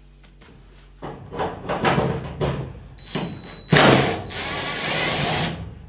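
Tool and hardware handling noise while the cord's wire connections are taken off a clothes dryer's terminal block: irregular scraping, rattling and knocks, with one louder knock a little past the middle and a steadier scraping stretch after it.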